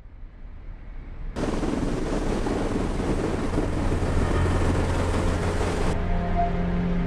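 Loud, steady engine noise with a rushing hiss, fading in and then cutting in abruptly about a second and a half in. Steady music tones start near the end.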